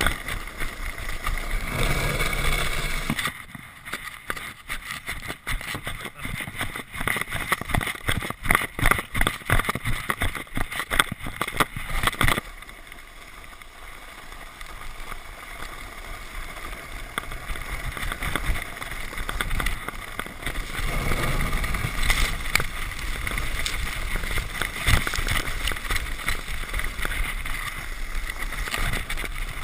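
Sled sliding fast over packed snow: a continuous scraping hiss. From about three seconds in to about twelve it is broken by a rapid string of bumps and knocks, then it turns to a quieter, smoother glide and grows rougher again later.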